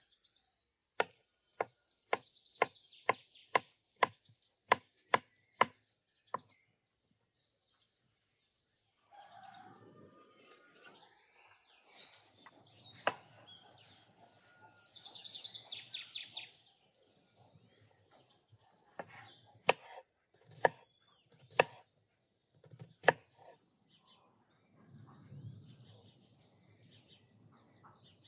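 Kitchen knife cutting vegetables on a wooden cutting board: about a dozen sharp knocks, roughly two a second, then a few more scattered knocks later on. Birds chirp in the background in between.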